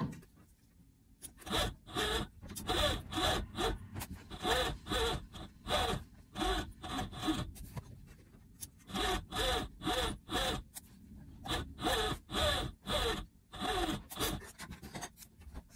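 Overlocker (serger) stitching the armhole seams of knit fabric in short start-stop bursts, about two a second, each burst rising and falling in pitch as the motor spins up and down. There are two runs, one for each armhole, with a pause of about a second and a half between them.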